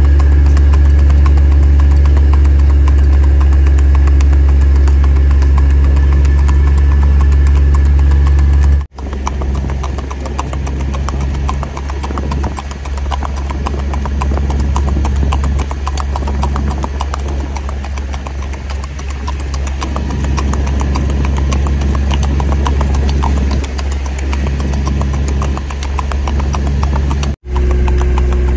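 Hooves of a gaited horse clip-clopping on asphalt in a quick, even rhythm, over the steady low hum of a vehicle engine running alongside. The engine hum is strongest in the first third; after a sudden cut the hoofbeats stand out more plainly.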